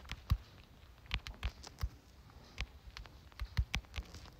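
Typing on a smartphone's touchscreen keyboard: a dozen or so light taps in quick, irregular runs as a phrase is entered letter by letter.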